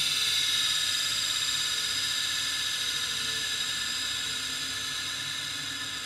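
Faulty Quantum Fireball ST 3.5-inch IDE hard drive spinning down: the spindle's high whine and airy hiss fade steadily as the platters slow.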